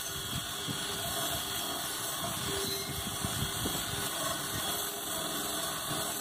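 Cordless drill spinning an abrasive wheel against a bronze boat propeller, a steady whir with scratchy grinding as the wheel scours the prop back to bare bronze.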